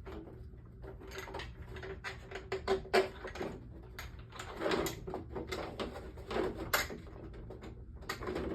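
Irregular clicks, knocks and light clattering of the pottery wheel's back plate and its screws being handled and fitted back on, over a faint steady low hum.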